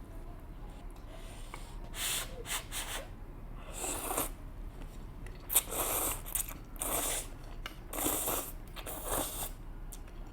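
Close-miked eating of spicy instant noodles: several short, noisy slurps and sucks of noodles, with chewing between them.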